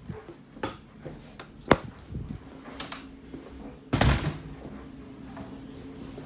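Several sharp clicks and knocks, the loudest a heavier knock with a short rattle about four seconds in.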